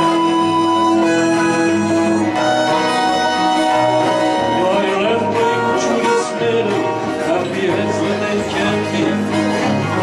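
Live acoustic band music: a harmonica holding long notes over acoustic guitars and fiddle, then after about four seconds the harmonica drops out and strummed acoustic guitar comes forward.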